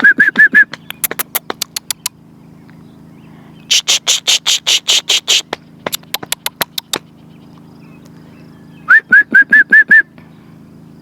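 A person making calling noises to get an animal's attention: quick runs of short rising whistled notes, about eight a second, near the start and again about nine seconds in, with a run of sharp kissing smacks and scattered tongue clicks in between.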